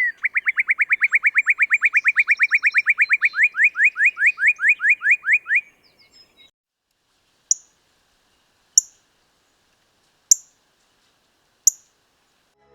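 Northern cardinal singing: a long, fast run of repeated slurred whistles, about six a second, slowing near the end, then four sharp, high chip notes about a second and a half apart.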